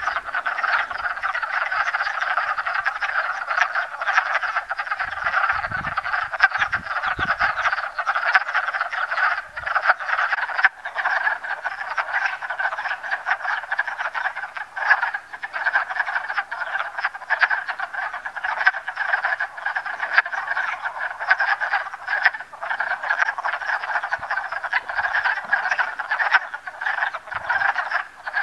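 Many wood frogs calling together in a dense, unbroken chorus of chatter: their spring mating chorus at the breeding pond.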